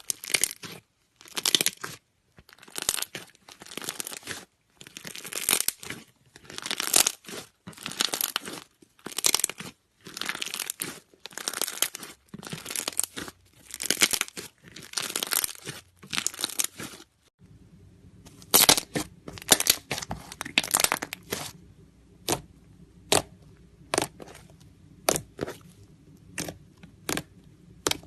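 Slime being squeezed and stretched by hand, giving repeated crinkly, crackling squelches about one to two a second. About seventeen seconds in, a faint steady hum comes in and the sounds turn into short, sharp pops.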